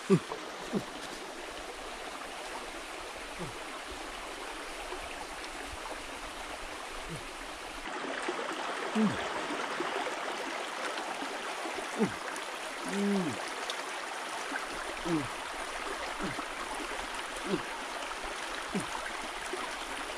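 Shallow forest stream running steadily over rocks, louder from about eight seconds in. Short low sounds that drop quickly in pitch come every second or two over it.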